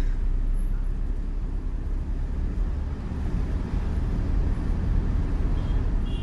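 A steady low rumble like a running vehicle or road traffic.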